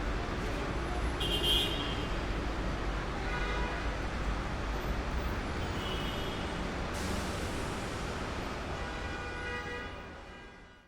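City street traffic: a steady low rumble of engines and tyres, with a couple of short car horn toots, fading out near the end.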